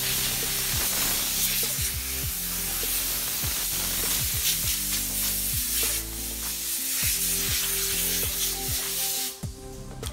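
Electric hand sander running on the wooden top of an antique dresser, a steady hiss of sanding, over background music with a beat. The sander stops about nine seconds in, leaving the music.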